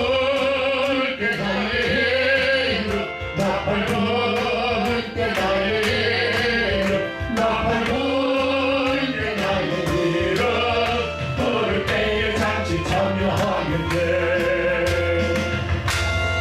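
Voices singing a Korean gospel hymn together over instrumental accompaniment with a steady beat.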